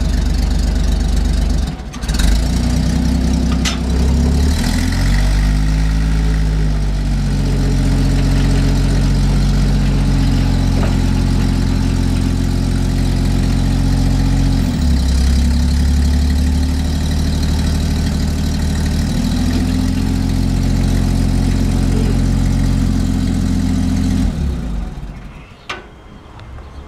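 Hyster RC150 forklift's six-cylinder gasoline engine running under load as the truck is driven and the forks are worked, its speed rising and falling several times. It stops near the end.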